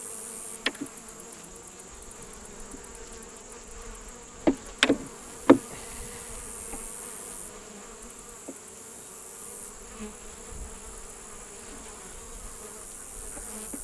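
Honey bees buzzing steadily around an opened hive box, with a few sharp clicks around the middle, the loudest about five and a half seconds in.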